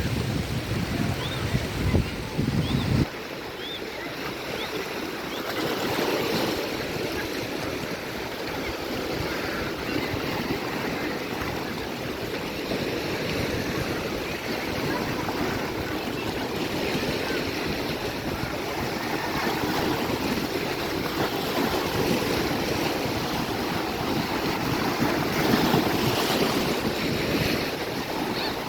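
Sea surf washing and breaking on the shore in a steady rush with slow swells, with wind buffeting the microphone in a low rumble for the first three seconds until it stops abruptly.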